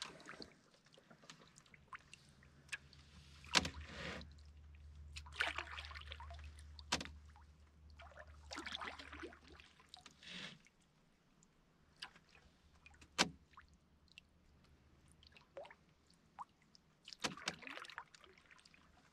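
Canoe paddle strokes through calm lake water, a few soft swishes and splashes, with several sharp knocks on the canoe. A low hum sits underneath during the first half.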